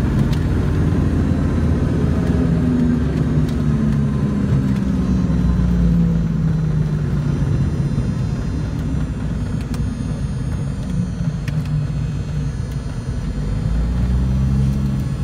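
The twin turbocharged six-cylinder Lycoming piston engines and propellers of a Piper PA-31-350 Chieftain, heard from inside the cockpit at low power during the landing rollout. It is a steady drone whose pitch slowly falls over the first several seconds as the aircraft slows. The pitch rises briefly near the end.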